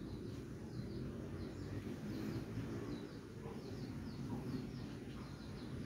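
Birds chirping in short, high, repeated chirps over a steady low outdoor rumble.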